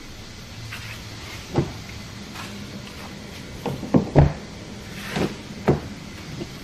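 A run of knocks and clunks from a Kia K3's door being opened and handled, the loudest about four seconds in.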